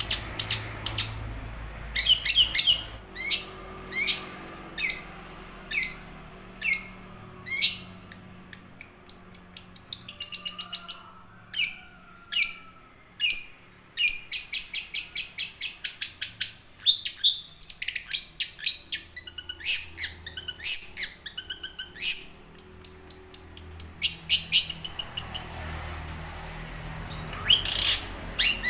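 Young long-tailed shrike (cendet) singing continuously: a long string of sharp, quick chirps and short harsh notes, broken by fast runs of rapid clicking chips.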